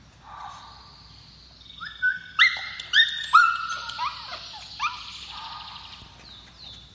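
Corgi puppy yapping: about six short, high-pitched barks in quick succession starting about two seconds in, with a fainter whine before and after.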